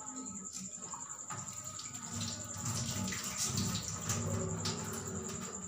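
Kitchen wall tap running into a steel sink while hands are rubbed and splashed under the stream, louder from about two seconds in.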